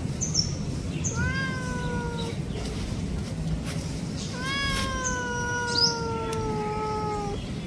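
Tabby cat meowing twice: two long, drawn-out meows that fall slightly in pitch, the second lasting about three seconds.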